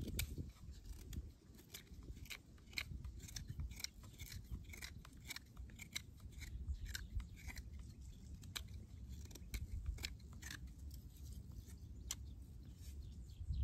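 Knife blade shaving a wooden arrow shaft: an irregular run of short, quick scraping strokes over a low rumble.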